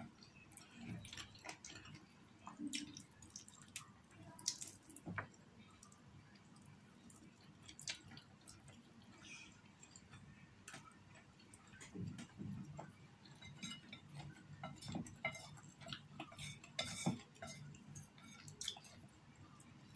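Chopsticks, a spoon and a fork clicking and scraping against a plate in scattered, irregular taps while someone eats noodles and chicken wings, with quiet chewing in between.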